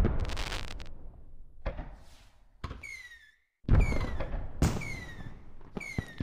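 Aerial fireworks shells bursting one after another, about six booms in quick succession, each fading into a crackle. Several are followed by short whistles falling in pitch.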